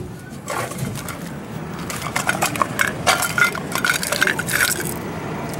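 Irregular knocks and clatter of a small snack can being taken out of a claw machine's prize chute and handled, over steady background noise.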